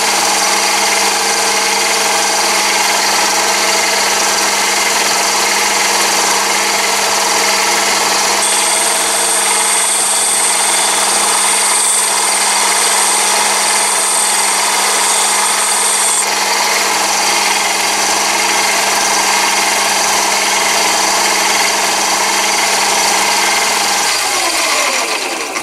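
Chinese mini lathe running at top speed with a diamond lapping wheel in the chuck, a steady motor hum. For several seconds in the middle a high whine joins in as a carbide tool tip is held against the diamond lap. Near the end the lathe is switched off and winds down.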